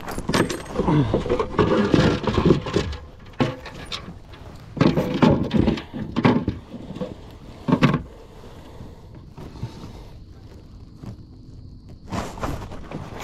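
Knocks, thuds and rustling from handling a freshly caught bass and fishing gear aboard a plastic fishing kayak. The sounds come in several irregular bursts, with a quieter stretch a few seconds before the end.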